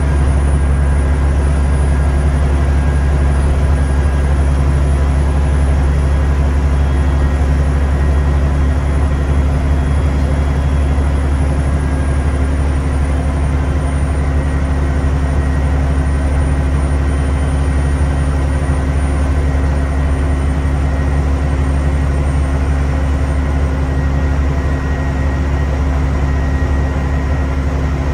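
Scania N94UD Omnidekka double-decker bus's turbocharged diesel engine running steadily under way, heard from inside the passenger saloon: a deep engine drone with a thin, high turbo whistle that slides slightly down in pitch about halfway through.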